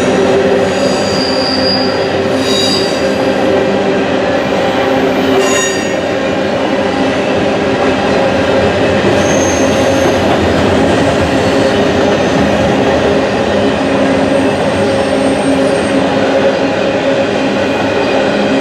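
Freight train of empty grain hopper cars rolling steadily past, with short high-pitched wheel squeals in the first few seconds and again about halfway through.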